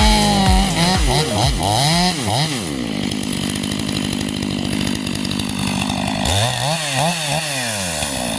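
Stihl MS 500i fuel-injected two-stroke chainsaw revving up and down, then holding a steady pitch for a few seconds as it cuts through wood, then revving up and down again near the end. The chain is freshly sharpened with a round file.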